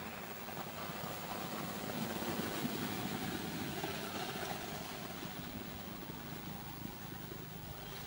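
Low, steady hum of a distant engine under outdoor background noise, a little louder in the middle.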